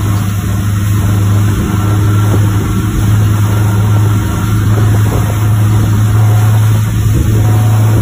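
Outboard motor running steadily at speed as the boat tows a banana boat, with a constant low hum over the rush of churning wake water and wind.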